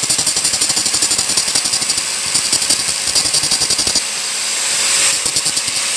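Hand-held angle grinder's disc scoring the hardened steel of a Yamaha 15 hp outboard's short shaft at the clutch dog, where the cross-pin ring sits, to roughen it for glue. The grinding comes in quick pulses, about four or five a second, as the disc is pressed and eased against the metal.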